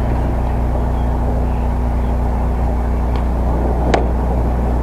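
Steady low outdoor rumble with a hum, broken by a single sharp knock about four seconds in.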